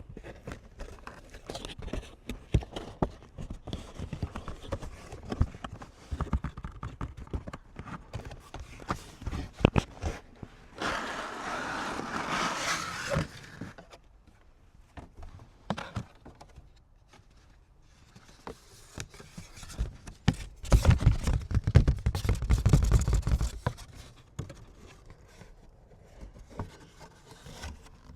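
Cards and card packaging handled close to the microphone: scattered taps and scrapes, with a stretch of rustling about eleven seconds in and a louder burst of rustling and low thumps about twenty seconds in.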